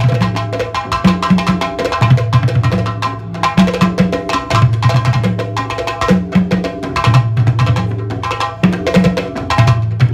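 Percussion-led music: drums and sharp wood-block-like clicks in a quick, steady rhythm, over a low pitched figure that repeats every couple of seconds.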